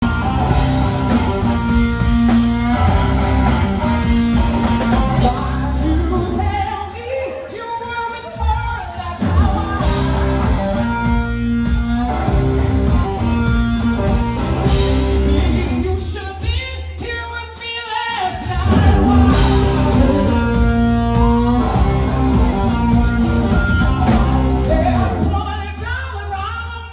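Live rock band playing: a woman singing over electric guitar, electric bass and a Yamaha drum kit, with the band briefly dropping in loudness about two-thirds of the way through.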